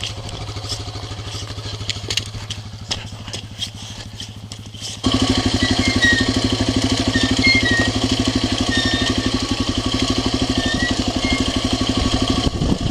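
Dirt bike engine idling with an even, fast pulse. About five seconds in it suddenly gets much louder and then holds steady at the higher level.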